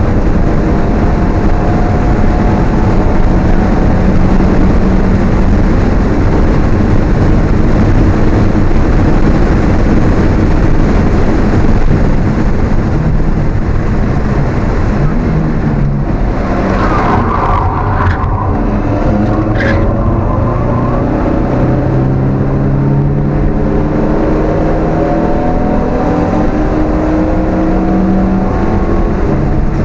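Alfa Romeo 1750's twin-cam four-cylinder engine heard from inside the car at racing pace, revving up repeatedly through the gears. About halfway through, the revs drop with a rush of noise and a few short sharp cracks as the car slows for a corner, then the engine pulls up through the revs again.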